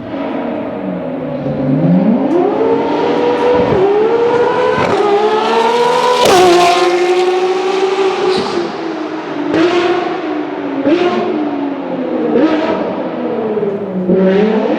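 Track-only hybrid hypercar's engine revving hard through several gear changes, each marked by a sharp crack, its pitch climbing and falling between them. Near the end the revs sink low and then pick up again.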